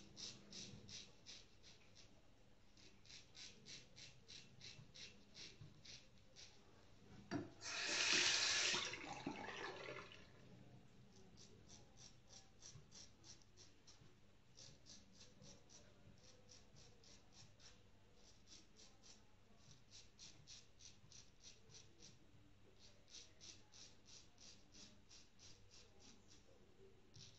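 Safety razor scraping through lathered stubble in quick runs of short strokes, several a second. About seven seconds in, a tap runs loudly for a couple of seconds.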